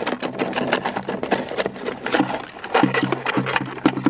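Live freshwater crayfish (koura) clattering and scrabbling in a plastic chilly bin, claws, legs and tails knocking on the plastic and ice packs in a rapid, irregular run of clicks.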